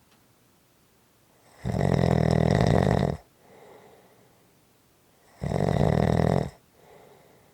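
Snoring in a slow, regular rhythm: two loud, rough snores, each followed by a softer breath.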